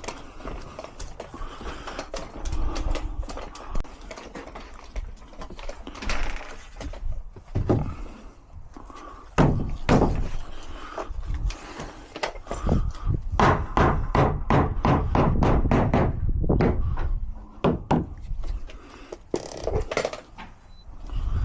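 Knocks and thunks on timber. In the middle comes a fast, even run of knocks, about four a second, like a hammer driving a nail.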